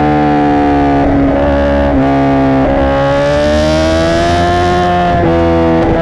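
Honda CBR1000RR SP1 inline-four engine through a Racefit Growler X exhaust, heard close up while riding. The note shifts in pitch several times with throttle and gear changes and climbs slowly for a couple of seconds in the middle.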